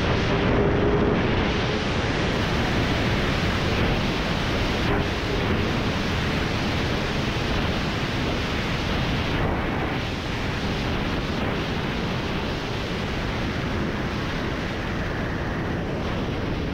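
Steady wind roar on the microphone of a motorcycle at highway speed. Under it the 2018 Honda CBR1000RR's inline-four engine is faint, its tone showing only briefly near the start.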